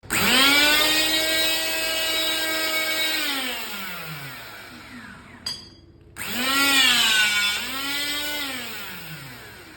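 Electric motor of a hydraulic rebar cutter running: it whines up suddenly, holds a steady pitch, then falls in pitch and fades as it stops. After a click about five and a half seconds in it starts again, dips briefly in pitch midway and winds down near the end.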